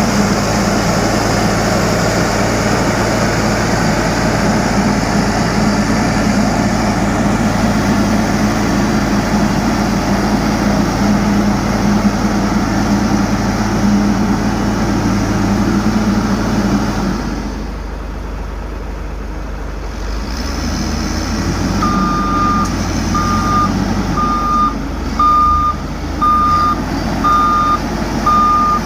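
Heavy road-construction machine's diesel engine running steadily, easing off about two-thirds of the way through. A reversing alarm then beeps about once a second as the machine backs up.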